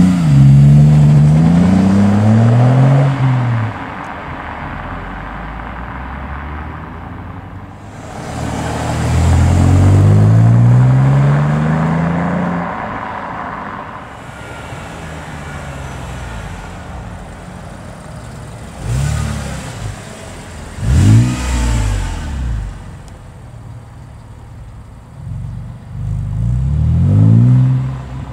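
Alfa Romeo 159's 3.2 V6 through a Ragazzon aftermarket exhaust. It is revved, with long rises and falls at the start and again about eight seconds in, and drops back to a low idle in between. Later come short, sharp blips of the throttle, then a rising run of revs near the end as the car pulls away.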